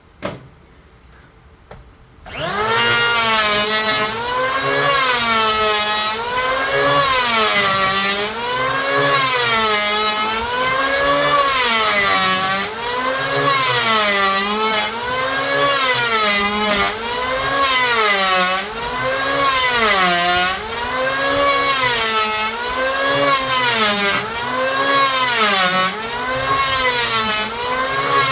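Electric hand planer starting up about two seconds in and cutting across a wooden block, its motor dipping in pitch under load and recovering with each pass, about one pass every second and a third.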